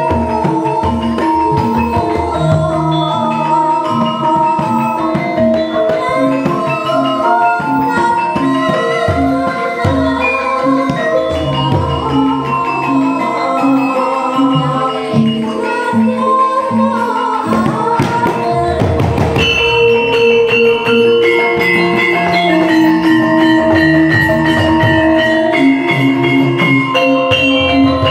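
Javanese gamelan ensemble playing in pelog barang tuning: bronze metallophones and gong-chime kettles ring out sustained notes over kendang hand-drum strokes. About two-thirds of the way in the drumming thickens and the melody moves higher.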